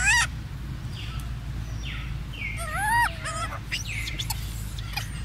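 Baby macaques giving high-pitched cries that bend in pitch. A rising squeal comes right at the start and a louder two-part call about three seconds in, with softer squeaks between, over a steady low rumble.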